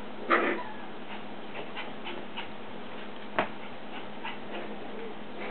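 Havana Silk Dog puppies playing on a tile floor: light, scattered clicks of claws on the tiles, with a short louder sound just after the start and a single sharp knock about three and a half seconds in.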